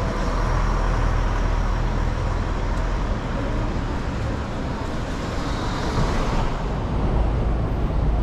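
City street traffic: cars passing with a steady tyre and engine rumble.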